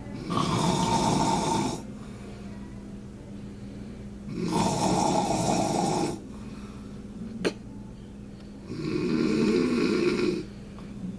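A man snoring loudly in his sleep: three long snores, each about a second and a half, roughly four seconds apart, with a single sharp click between the second and third. A steady low hum runs underneath.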